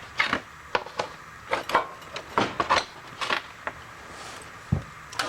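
Small scraps of metal clinking and clattering against a container as garbage is dumped out and the brass picked from it, in irregular knocks, with one dull low thump near the end.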